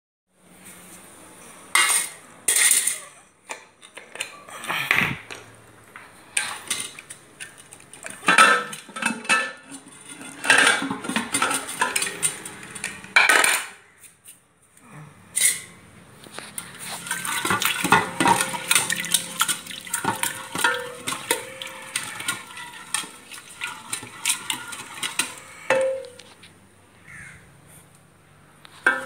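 Aluminium cooking pot and its metal lid clattering in a few separate knocks, then a wooden dal masher churning cooked lentils in the pot, knocking and scraping against its sides in a fast run of clicks.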